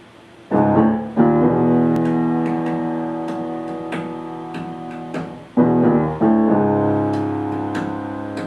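Piano music: a pair of sustained chords struck about half a second in, and another pair about five and a half seconds in, each left ringing and slowly fading.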